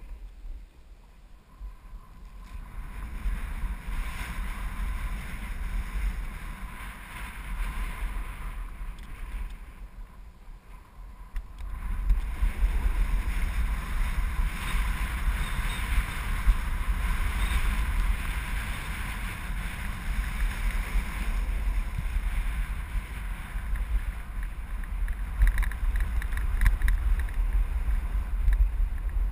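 Snowboard sliding down a groomed run, its base and edges scraping and hissing over the snow, with wind rumbling on the microphone. It dips briefly about ten seconds in, then grows louder from about twelve seconds in.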